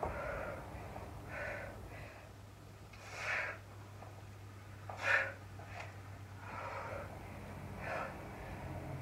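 A woman breathing hard with forceful, audible exhalations, about six puffs over nine seconds, as she works through weighted pistol squats. The loudest breaths come about three and five seconds in.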